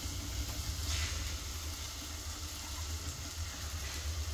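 Onion-tomato masala frying in a steel pan with a steady gentle sizzle over a steady low hum, as blended spinach paste is tipped in from a mixer jar.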